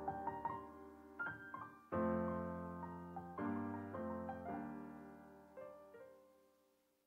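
Piano chords closing out a hip-hop beat with no vocals: sustained chords ringing and decaying, fresh chords struck about two seconds in and again a little later, then fading out to silence near the end.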